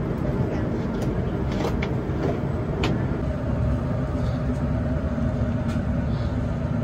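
Steady cabin noise of a parked Boeing 787-9: the low rumble and hum of the cabin air-conditioning and ventilation, with a few faint clicks and knocks scattered through it.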